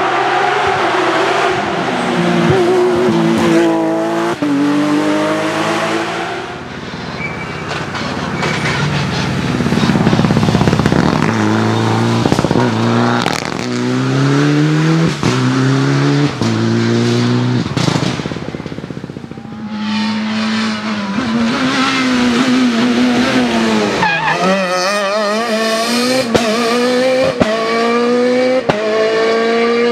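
Rally cars passing one after another at full throttle on a tarmac stage. Each engine climbs in pitch and drops back at quick upshifts, and a few sharp cracks are heard in the later part.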